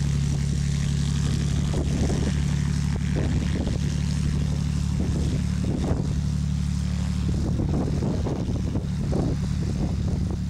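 Light piston-engine propeller plane running steadily at low power as it taxis on the ground.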